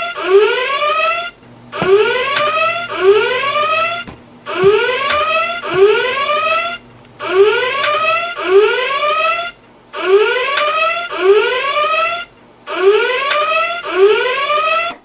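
Flying alarm clock's electronic alarm going off: loud rising chirps in groups of three with a short pause between groups, repeating steadily, then cutting off right at the end.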